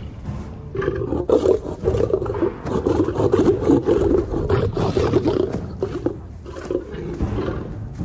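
Several young male lions snarling and growling in a squabble over a small kill. It starts about a second in, breaks off briefly around six seconds, then starts up again.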